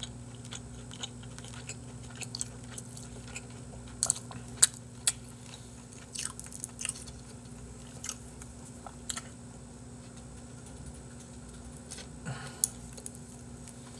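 Close-miked chewing and biting on grilled chicken skewers, with scattered short smacks and clicks; the sharpest comes about four and a half seconds in. A low steady hum runs underneath.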